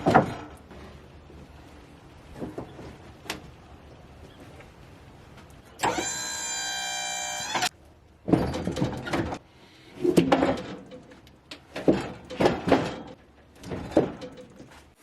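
Sawn boards knocking and clattering as they are handled at a portable sawmill, in several irregular bursts. Midway there is a steady motor whine lasting about a second and a half, typical of the mill's electric drive moving.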